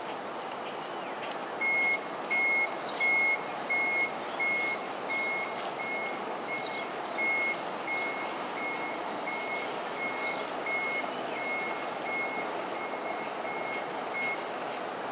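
A vehicle's reversing alarm beeping at one steady pitch, roughly three beeps every two seconds. The beeps are loudest at first and grow fainter, over a steady hum of background noise.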